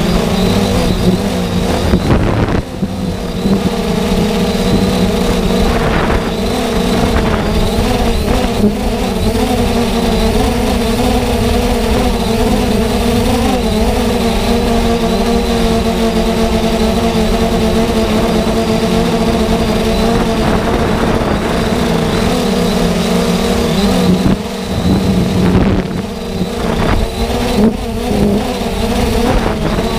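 Multirotor drone's motors and propellers humming steadily, heard from the camera it carries, the pitch wavering slightly as it flies; the level dips briefly a couple of times.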